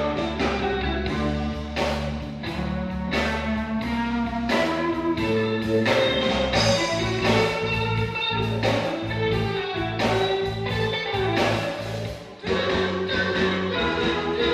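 Instrumental music with guitar over a steady bass line and beat, with a brief drop in level about twelve seconds in.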